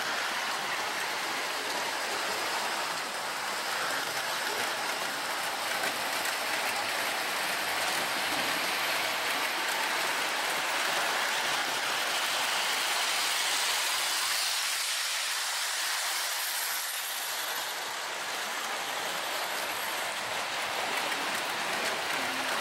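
O-gauge model train running along the layout track, a steady hissing running noise of wheels on rail, a little louder as it draws near.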